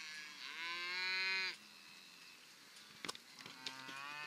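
Cattle mooing: one long moo about half a second in, and another starting near the end, with a few faint clicks around three seconds in.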